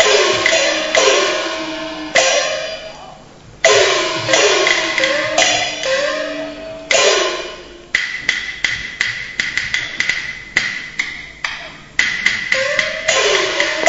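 Peking opera percussion ensemble playing for stage combat: sharp clapper and drum strokes, gongs ringing after each strike, some falling in pitch like the large gong and some rising like the small gong, over a steady cymbal shimmer. The strokes come in a quick run in the middle, between slower gong strikes.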